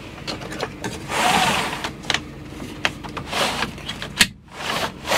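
Hinged acrylic Arctic Tern van window being closed and its blind drawn: a sliding swish about a second in, followed by several sharp clicks from the latches and frame.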